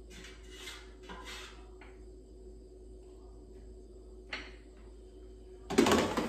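Fork scraping food out of an air fryer basket onto a plate: a few soft scrapes in the first second and a half, then a single click. Near the end comes a loud rattling clatter as the basket is pushed back into the air fryer.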